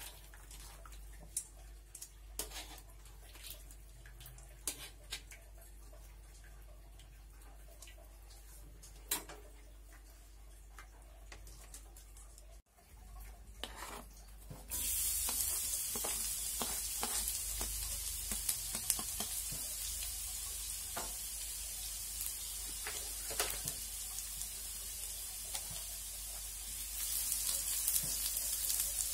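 Metal tongs clicking now and then against a wok as pakcoy is turned in a little sauce. After a short break, hot oil sizzles steadily in a pan, growing louder near the end as minced garlic fries in it and is stirred with a spatula.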